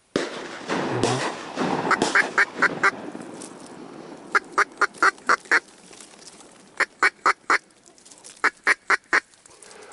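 Duck quacks in four quick runs of four to six, about four quacks a second. Rustling and handling noise fills the first three seconds.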